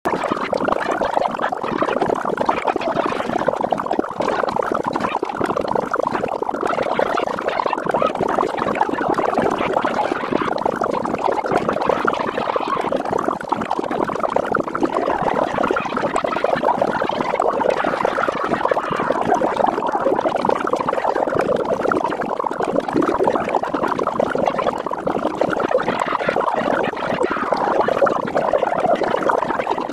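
A cartoon soundtrack with spoken dialogue, played back at eight times its normal speed, so the voices blur into a continuous, fast, garbled chatter with no pauses.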